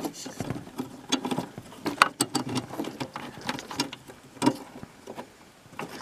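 Irregular small clicks and scrapes of fingers tugging at the plastic wire plugs on a propane refrigerator's control circuit board, with the sharpest clicks about two seconds in and again near four and a half seconds.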